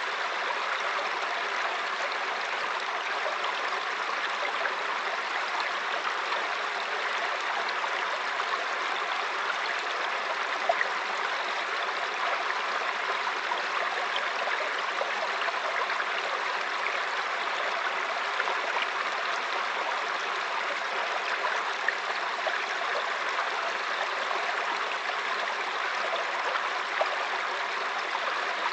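Mountain stream babbling and splashing over rocks: a steady rushing of water with small splashes here and there.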